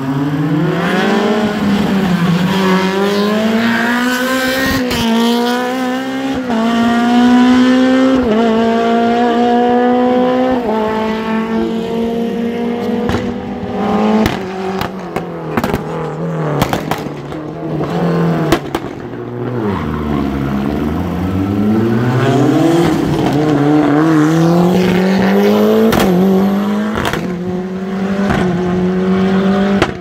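Rally car engines revving hard and climbing through the gears, the pitch rising in steps between shifts. A string of sharp cracks comes around the middle. Then the engine note drops low and climbs again as a car accelerates away.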